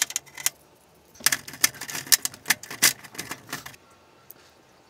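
Rapid, irregular clicking and rattling of small metal hand tools and parts: fan leads being clamped into the alligator clips of a helping-hands stand to prepare them for soldering. A few clicks at the start, then a dense run of clatter from about a second in until nearly four seconds.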